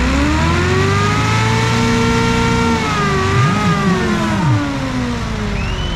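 Massey Ferguson tractor's diesel engine revved hard under full load, pulling against another tractor. Its pitch climbs over the first second, holds, then sags away through the second half, while a lower engine note swings up and down briefly in the middle.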